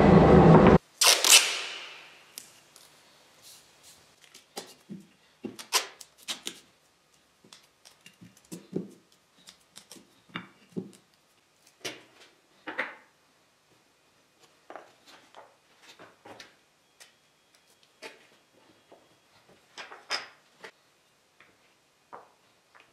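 Small cut wooden blocks being set down and pushed into place on a board by hand: scattered light wooden knocks and clicks, irregular, a few each second. A single loud burst of noise stands out about a second in.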